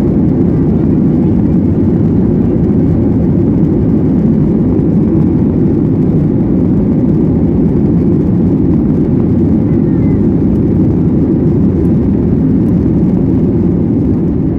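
Steady, loud low roar in the cabin of a Boeing 737-800 rolling down the runway just after touchdown: its CFM56 engines and the rushing air heard through the window seat over the wing. It eases a little near the end.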